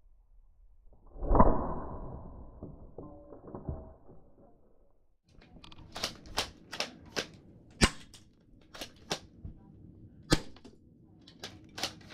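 A loud thump with a brief ring about a second in, then a string of about a dozen sharp airsoft shots cracking at uneven intervals, often two or three a second.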